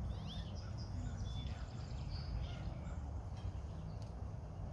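Songbirds chirping in short, scattered calls over a steady low rumble.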